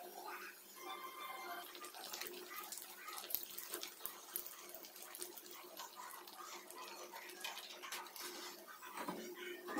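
Batter-coated bread slices frying in hot oil in a pan, a steady sizzle full of small crackles. There are occasional scrapes and clicks of a metal slotted spoon as the slices are turned.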